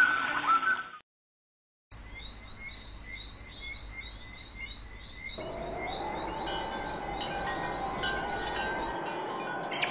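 Library recording of wild birdsong laid over the video: chirps that break off about a second in, then a different recording of rapid, repeated high chirps, with a steady rushing noise joining about halfway.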